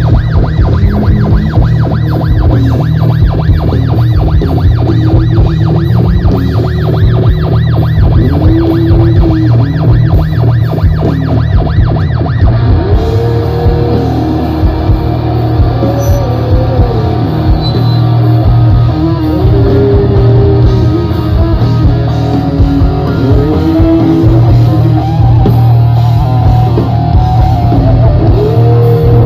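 Rock band playing a loud opening: distorted electric guitar over a steady low drone, with wailing glides that rise and fall.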